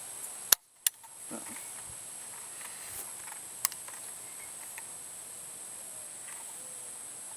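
.410 shotgun shot from a Rossi Matched Pair youth single-shot: one sharp report about half a second in, after which the recording briefly drops out, with a smaller crack just after. Insects chirr steadily in the background, and there is a light click a few seconds later.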